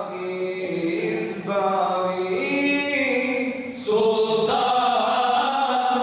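A group of imams' male voices singing mevlud verses unaccompanied, in long held notes that step from pitch to pitch. The singing is softer for the first few seconds, then comes in louder about four seconds in.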